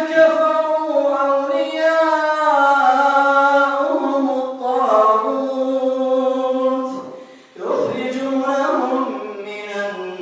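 An imam chanting Quran recitation aloud during prayer: one man's voice in long, melodic held notes, with a short pause for breath about seven and a half seconds in.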